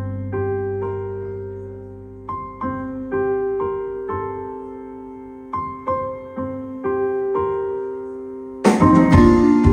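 Live electric piano playing a short, repeating phrase of single notes, each struck and then fading. About nine seconds in, the full band comes in together with drums and a loud low end, over the keys.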